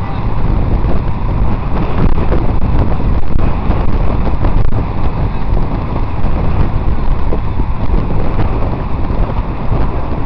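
Wind buffeting the microphone while riding a bicycle at speed, a loud, steady low rush.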